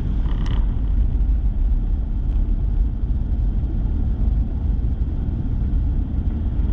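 Steady low rumble of a pickup truck driving, heard from inside the cab: engine and road noise with no distinct events.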